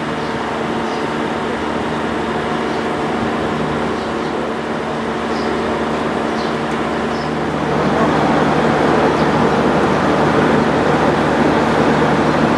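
Diesel engines of a JR Kyushu KiHa 66/67 series railcar idling: a steady hum with a low drone, getting louder about eight seconds in.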